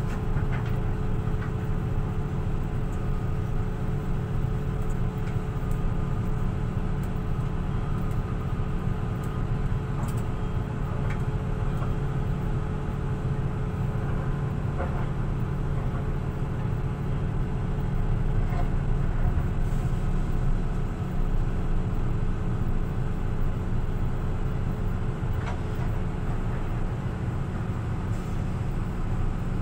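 Excavator's diesel engine running steadily, with a deep drone and a constant higher hum, heard from inside the operator's cab. A few faint clicks come through now and then.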